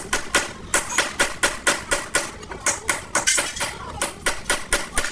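Repeated hammer blows on metal, a quick irregular series of sharp strikes about three to four a second.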